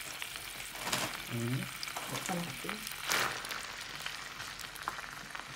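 Mixed vegetables sizzling in melted butter in a frying pan, with a steady hiss, while a spatula stirs and scrapes through them, the scrapes loudest about one and three seconds in.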